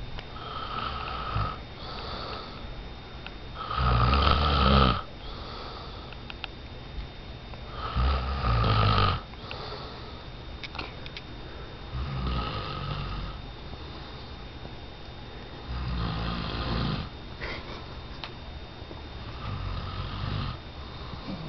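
A person snoring in sleep, one rasping snore about every four seconds, six in all, the second and third the loudest.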